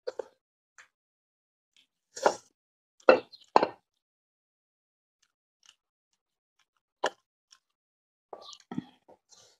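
A person eating rice and fish curry by hand makes short, wet mouth sounds as he chews and takes food from his fingers. They come singly, with quiet gaps between them, and the loudest cluster falls around two to four seconds in.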